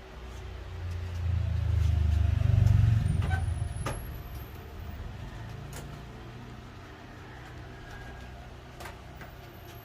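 Low engine rumble of a passing motor vehicle, swelling to a peak about two and a half seconds in and fading by about four seconds, with a few faint clicks after.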